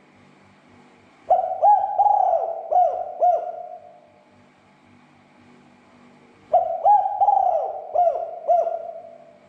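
Spotted dove cooing: two phrases about five seconds apart, each a quick run of about five rising-and-falling coo notes, over a faint low hum.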